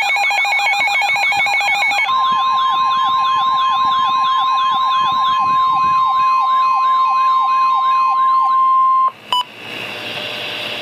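Weather radio alert sounding: a rapidly repeating electronic siren warble over steady alarm tones, with the broadcast's long steady warning alarm tone (about 1050 Hz) coming in about two seconds in. The tones stop together about nine seconds in, followed by a click and a short hiss of radio static.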